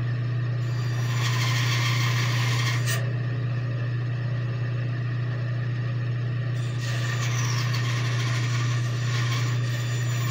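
A bandsaw running while its blade cuts through a small wooden cutout. The cutting hiss comes in two stretches, from about half a second to three seconds in and again from about seven seconds on, over a steady low hum.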